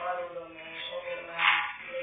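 Music playing, with a voice over it.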